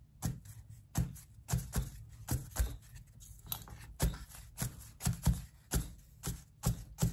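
A paint-dipped cardboard toilet-paper-tube stamper dabbed repeatedly onto a sheet of paper on a tabletop: a run of short, dull taps, about two a second, unevenly spaced.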